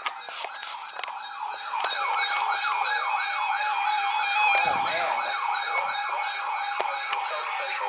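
Electronic alert siren sounding a fast, even rise-and-fall yelp, about three sweeps a second, growing louder about two seconds in; it marks the start of a severe thunderstorm warning broadcast.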